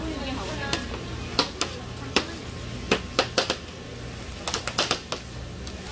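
Metal spatula tapping and scraping on a tray while fish cake paste is shaped, an irregular string of sharp clicks with a quick cluster near the end, over a steady low hum.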